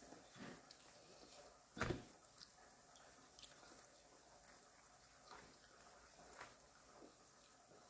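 Faint mouth-chewing sounds and the soft, moist squish of roast chicken being torn apart by hand, with one louder sharp sound about two seconds in.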